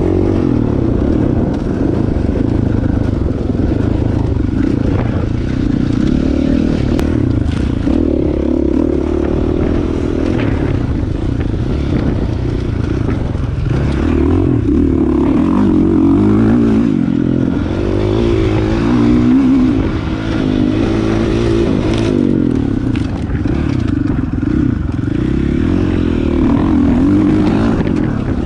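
Dirt bike engine running hard on a trail ride, its pitch rising and falling as the throttle opens and closes, with a few short knocks and rattles from the bike over rough ground.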